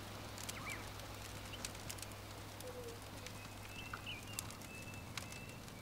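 Log fire crackling in a metal fire pit, with scattered sharp pops, and a few faint bird chirps.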